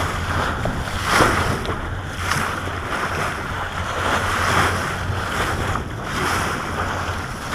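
Wind buffeting the microphone and water sloshing around a fishing boat, rising and falling in surges about once a second over a steady low hum.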